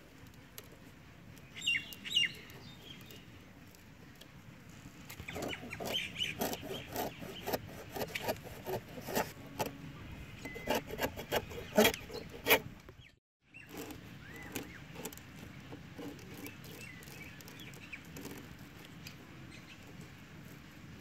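Chickens clucking, with a run of short clicks and taps from hand work on a banana-stem trap in the middle. The sound drops out completely for a moment partway through.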